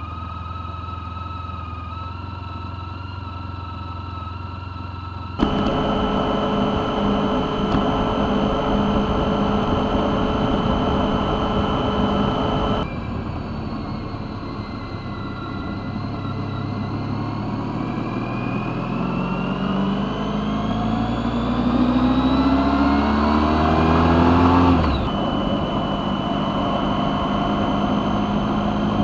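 Honda ST1300 Pan European V4 engine heard from a motorcycle-mounted dash cam. It first runs steadily at idle. It then runs along at steady speed under road and wind noise, then accelerates with its note rising for several seconds before breaking off sharply near the end, and settles to a steady cruise.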